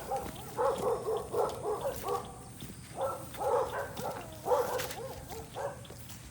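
A dog barking repeatedly in a run of short barks.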